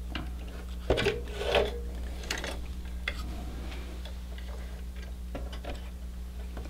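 Small clicks and knocks of computer hardware being handled as graphics cards are shifted further down, with a louder cluster of knocks about a second in, over a steady low hum.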